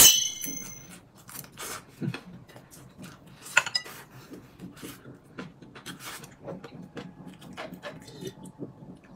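Tableware clinks sharply once at the start with a short ring, followed by scattered soft clicks and taps of eating at the table.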